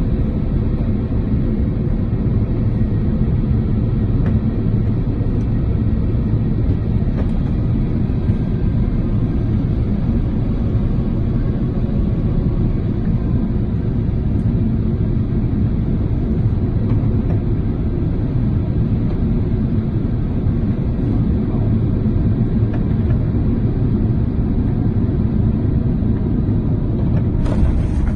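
Steady low rumble inside the cabin of an Airbus A350-900 during landing, with a brief hiss near the end.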